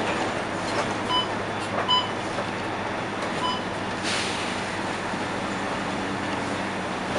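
Scania L113CRL bus's Scania DSC11 diesel engine and road noise heard from the front of the cabin while driving, a steady rumble. A few brief metallic clinks come in the first few seconds, and a short rushing hiss about four seconds in.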